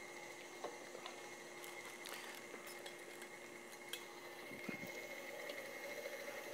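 Stand mixer motor running steadily and quietly as it beats choux paste, with a few faint clinks of metal sheet pans being handled.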